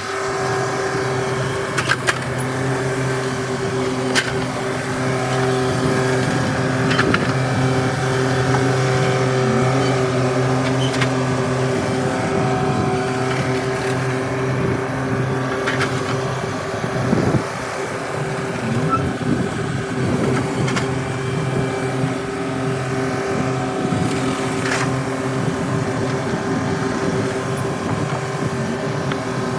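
Engine running steadily at a constant pitch, with a few sharp clicks or knocks; the pitch wavers briefly about two-thirds of the way through.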